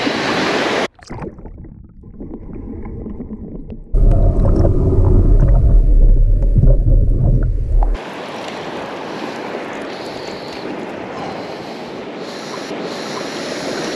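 Shallow surf and waves washing around a shrimp push net as it is pushed through the water. About a second in the sound turns sudden and muffled, heard from under the water, with a loud low rumble from about four to eight seconds; then the open-air wash of the waves returns.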